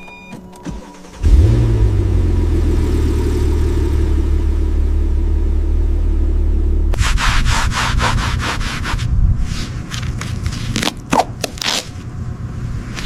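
A low, steady machine hum starts suddenly about a second in. Past the middle, quick rubbing or sanding strokes, several a second, come in over it.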